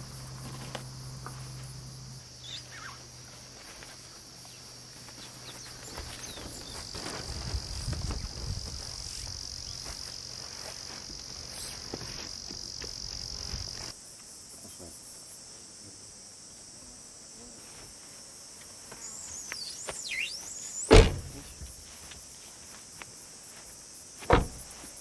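Steady high chirring of insects, with a loud thunk about 21 seconds in and another just before the end.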